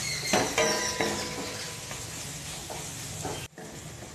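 Wooden spatula stirring and scraping mashed potato and spice paste around a frying pan, with a faint sizzle of the oil under it. A few scraping strokes fall in the first second, then the stirring and sizzle go on more softly and cut out briefly about three and a half seconds in.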